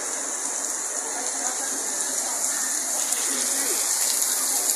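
Heavy rain falling steadily, spattering on the flooded pavement and the market's tarp awnings, growing a little louder after about three seconds.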